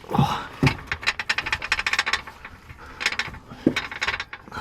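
Fast ratchet clicking, about ten clicks a second, in a run of about a second and again briefly later, after a couple of dull knocks near the start.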